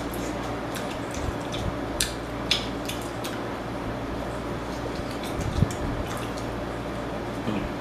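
Close-up wet chewing, lip smacks and bites on a sauce-coated fried chicken drumstick, with scattered sharp clicks, loudest around two seconds in and again about five and a half seconds in, over a steady low hum.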